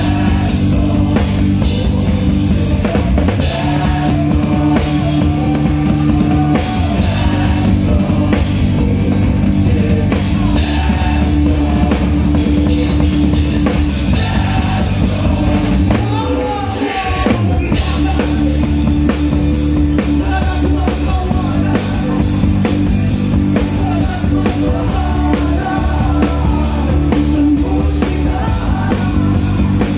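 Live rock band playing, with the drum kit hit hard and up front: snare, kicks and crashing cymbals over guitar and bass, and a voice singing. The low end drops out briefly a little past halfway, then the full band comes back in.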